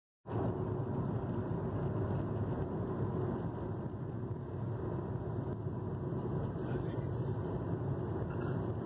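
Steady road noise inside a moving car: tyre rumble and engine hum at cruising speed, cutting in abruptly just after the start.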